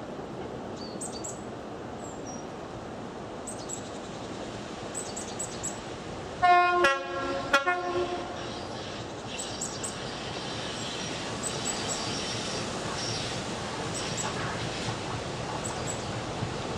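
InterCity 125 (Class 43 power car) two-tone horn sounded once about six and a half seconds in, a high note then a low note. It is followed by the low running rumble of the approaching HST, slowly building.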